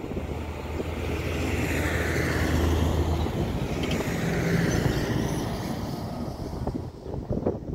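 Jet airliner engines rumbling as the aircraft climbs away after take-off, mixed with road traffic on the highway close by. The noise swells over the first few seconds and then eases off.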